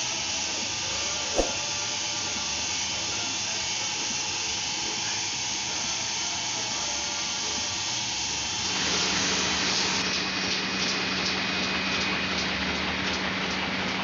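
Four-colour offset printing press running with a steady mechanical whir. A sharp click comes a little over a second in. About nine seconds in the noise grows louder with a low hum, and a regular ticking of about two beats a second follows.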